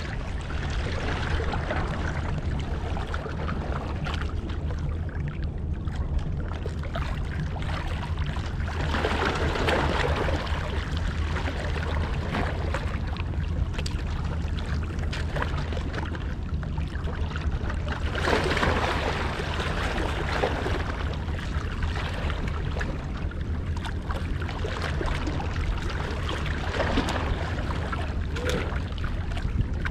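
Steady low drone of boat engines out on the sea, with water washing and splashing over it. The splashing swells twice, around a third and about two-thirds of the way in.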